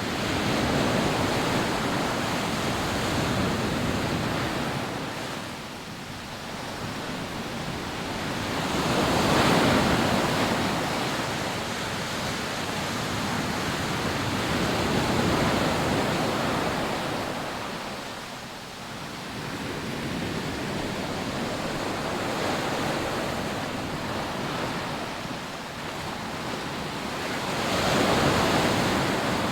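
Rough sea surf breaking and washing up a sandy beach: a continuous rushing that swells and fades as each wave comes in, surging loudest about a third of the way in and again near the end.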